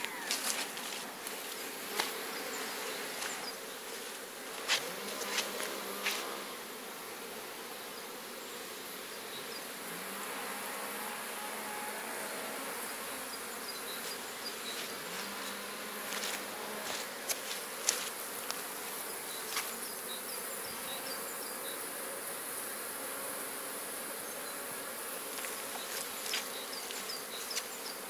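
Honeybees buzzing around the hive entrances: a steady hum of many bees, with now and then a single bee's buzz passing close. A few sharp clicks come through, the loudest about two, five and eighteen seconds in.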